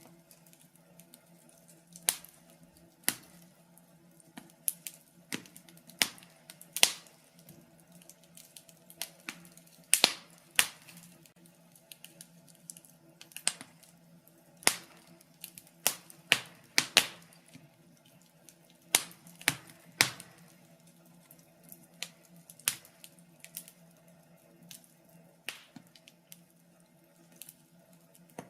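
Fireplace fire crackling: sharp, irregular pops, one or two a second, some louder than others, over a faint steady hum.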